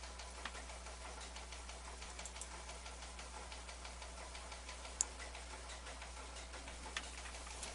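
Faint irregular ticking and crackle over a steady low electrical hum, with one sharper click about five seconds in.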